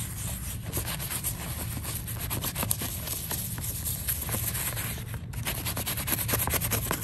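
Soft-bristled toothbrush scrubbing a wet leaf with soapy water: a rapid, steady scratchy brushing, broken by a short pause about five seconds in.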